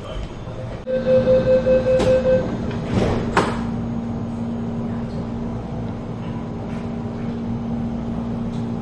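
Metro Cammell MLR electric train's door-closing warning: a rapid beeping for about a second and a half, then the sliding doors thud shut. A steady hum from the train's equipment starts with the beeping and continues after the doors close.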